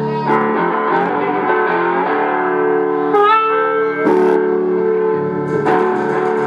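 Homemade double-neck electric guitar with a car-muffler body, played loud through an amplifier: notes and chords struck about five times and left ringing, with a brief upward glide about three seconds in.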